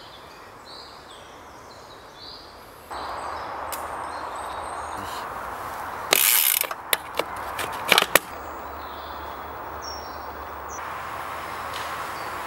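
Faint bird chirps at first, then a mountain bike's rear-hub freewheel ratchet buzzing in a short burst about six seconds in. A few sharp drivetrain clicks follow over the next two seconds, over a steady background hiss.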